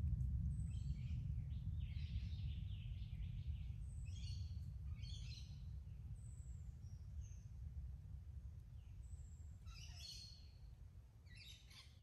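Low rumble of distant rolling thunder dying away steadily, with forest birds giving short chirps and whistles above it every second or two.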